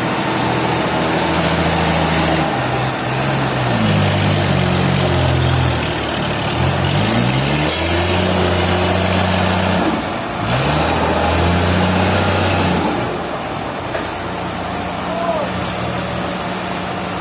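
Large engine running, its pitch dropping and rising again several times as it is revved, then settling into a steady idle about thirteen seconds in.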